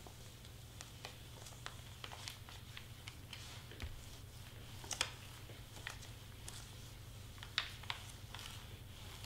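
Faint scattered taps, ticks and paper rustles from foil-covered cardstock and craft tools being handled, over a steady low hum. The two sharpest taps come about halfway through and again a couple of seconds later.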